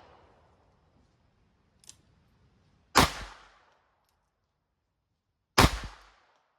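Two shots from a Ruger 22/45 Lite .22 LR semi-automatic pistol, about two and a half seconds apart, each a sharp crack with a short echo. A faint click comes about a second before the first shot.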